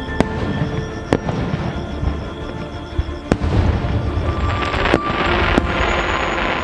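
Fireworks bursting in the air: a handful of sharp bangs, then a dense crackling from about three and a half seconds in, over background music.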